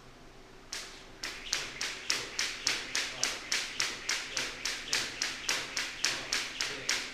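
Jump rope slapping the gym floor in a steady rhythm, about three sharp slaps a second, starting about a second in.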